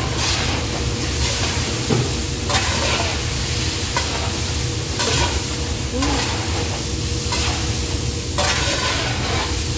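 A large wok of shredded potatoes and vegetables sizzling while a long metal spatula scrapes and turns them, in strokes about a second apart, over a steady low rumble.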